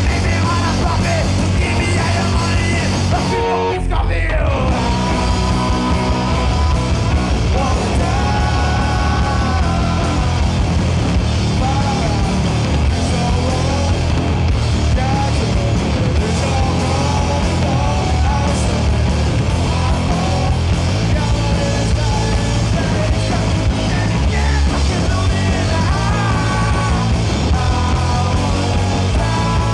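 Live punk rock band playing: electric guitar and drum kit driving hard under shouted, yelled singing. The band stops for a moment about four seconds in, then crashes back in.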